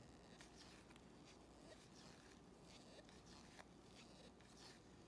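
Faint, irregular soft scrapes and clicks of trading cards sliding against each other as a stack is flipped through one card at a time in nitrile-gloved hands, over a low room hum.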